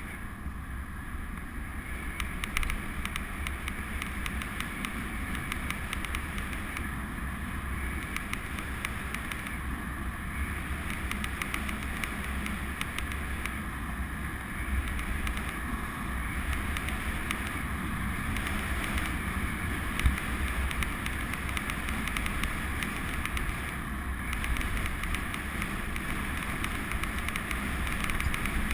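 Steady rushing wind noise on the microphone with tyre noise from a bicycle coasting along a tarmac lane. One sharp knock about two-thirds of the way through.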